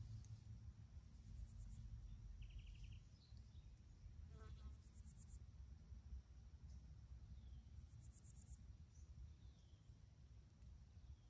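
Faint, steady chirping of crickets and other insects, with a few faint bird chirps over a low, steady rumble.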